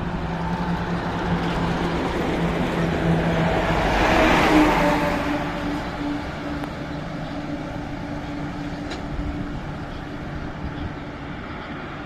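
Heavy trucks, among them an LPG tanker lorry, passing close by on a highway. Their engine and tyre noise swells to a peak about four seconds in, then fades as they draw away.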